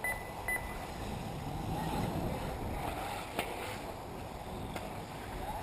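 1/10-scale 4WD RC off-road buggies running around the track, their motors whining up and down in pitch over wind noise. Two short high beeps sound right at the start.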